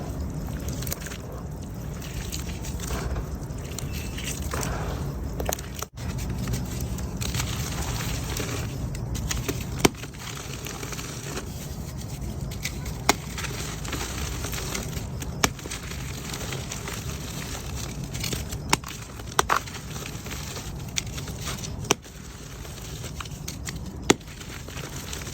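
Crumbly mud being broken apart: a continuous crackling, scraping crumble with sharp snaps now and then. The sound breaks off briefly about six seconds in.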